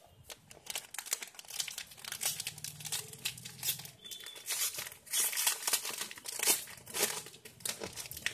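Crinkling and tearing of an ink cartridge's sealed packet as it is pulled open by hand, in irregular bursts of rustling.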